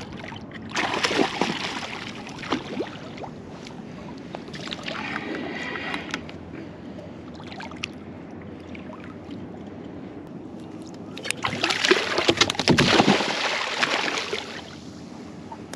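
Water splashing as a hooked spiny dogfish thrashes at the surface beside a small boat. It ends in a loud burst of splashing near the end, as the shark gets free: the braided line was cut, where a steel wire leader would have held.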